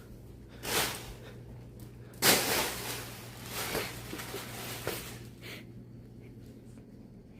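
A bag rustling in short bursts as a cat plays in it, the loudest burst about two seconds in, over a steady low hum.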